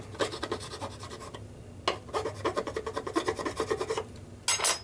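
Burr being filed off the back of a freshly drilled hole in a white metal locomotive frame: two runs of quick, even rasping strokes, with a sharp click between them and a short, louder scrape near the end.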